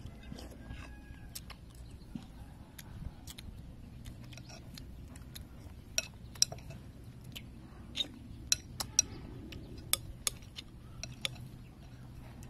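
Metal spoons clinking and scraping against ceramic soup bowls as two people eat. The clinks are short, sharp and scattered, coming thicker and louder in the second half.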